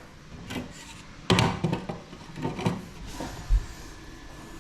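A few irregular knocks and thumps of hard objects, the loudest about a second and a half in, then a deep thud near the end, from work around a freshly set shower base.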